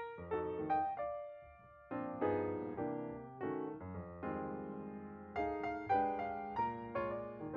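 Background piano music: keyboard notes struck one after another and fading, with a brief lull between about one and two seconds in.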